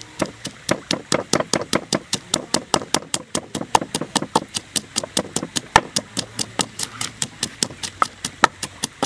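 Wooden pestle pounding chopped red chilies and shallots in a wooden mortar: a steady run of dull knocks, about four or five a second, starting suddenly.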